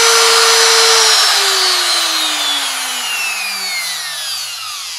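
CNC router's spindle motor with a V-bit in the collet running at full speed, then switched off about a second in and coasting down, its whine falling steadily in pitch and fading.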